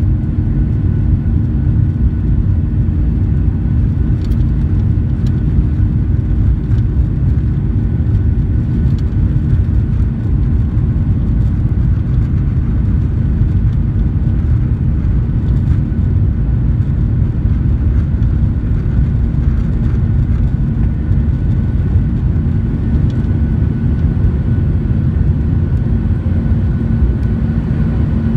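Cabin noise of a Boeing 737-900ER on its takeoff roll, heard from a window seat over the wing: the CFM56-7B turbofan engines running at takeoff thrust, a steady deep rumble with a steady hum over it.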